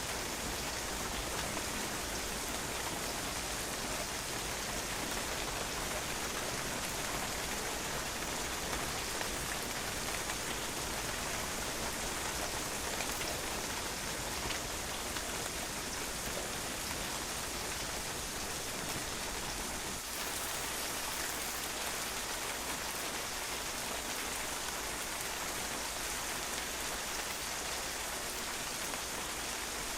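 Steady rain falling and drops pattering on a patio, an even hiss with faint individual drop taps.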